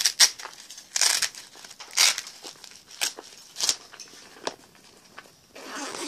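Rustling and crinkling of plastic tackle being handled close to the microphone, in short bursts about once a second that thin out in the second half.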